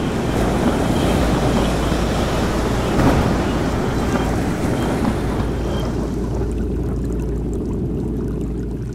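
Storm-at-sea sound effects: heavy waves and rain with wind, a loud crash about three seconds in, fading away near the end.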